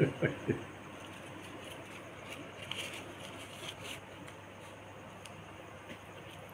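Faint rustling and crinkling of paper banknotes being handled and shuffled through the hands. There are a few short low sounds right at the start.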